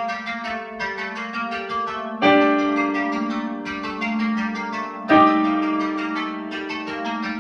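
Harp playing a fast repeating plucked figure over a steady low drone, with a loud deep accented note about two seconds in and again about five seconds in.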